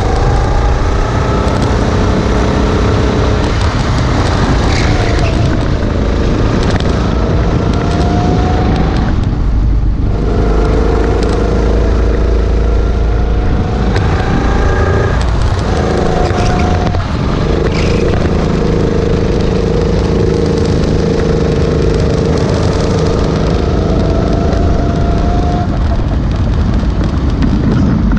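Single-cylinder four-stroke kart engine running hard on track, its pitch climbing on the straights and dropping sharply as the throttle comes off for corners, about a third of the way in and again near the end. A heavy low rumble of wind on the open kart's camera runs under it.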